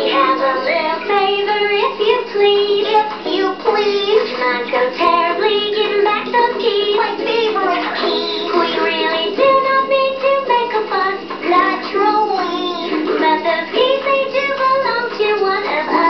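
Cartoon characters singing a song in high voices over instrumental backing music.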